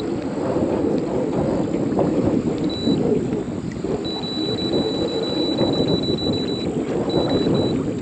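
Wind buffeting the microphone and water washing against a small boat's hull. A faint thin high whine comes and goes from the bow-mount Minn Kota electric trolling motor as it works to hold spot lock, which keeps letting go.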